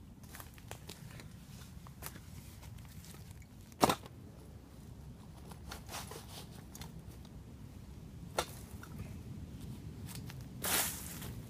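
Footsteps on dry leaf litter and twigs, then a rucksack being handled and opened, with scattered small clicks and rustles. A single sharp snap about four seconds in is the loudest sound, and a longer rustle of cloth comes near the end as a bag is pulled out.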